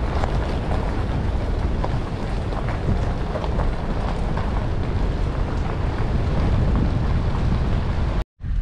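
Toyota Tundra pickup driving on a dirt forest road, heard from a camera mounted outside the truck: a steady low rumble of wind on the microphone and tyres rolling over dirt and gravel, with many small clicks and knocks. The sound cuts off abruptly near the end.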